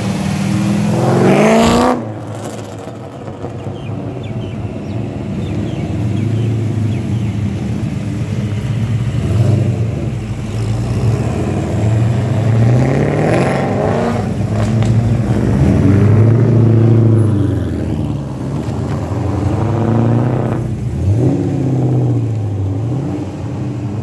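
Holden Commodore sedans driving past one after another, their engines running loudly and revving up and easing off several times.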